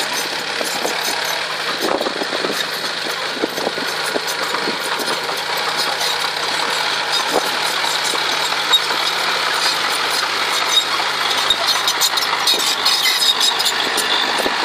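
A small dump truck's engine runs steadily while its raised tipper bed empties a load of soil. Clods tumble off the bed with a few short knocks a couple of seconds in.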